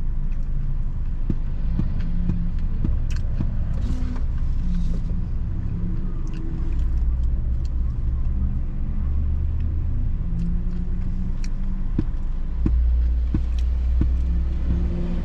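Steady low rumble of a car heard from inside the cabin, with a few light clicks and rustles over it.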